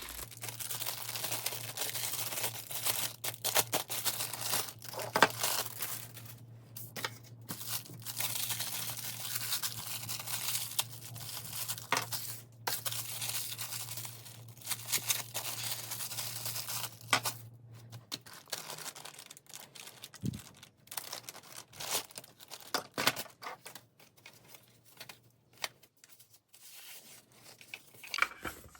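Plastic packaging crinkling and tearing as it is handled, broken by sharp clicks and knocks of parts being fitted.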